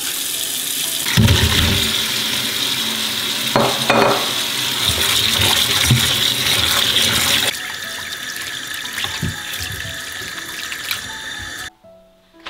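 Kitchen tap running into a stainless steel sink while vegetables are rinsed and rubbed by hand under the stream, water splashing over them. The water cuts off abruptly shortly before the end.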